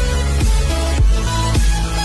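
Electronic intro music with heavy bass and a steady beat, about two beats a second.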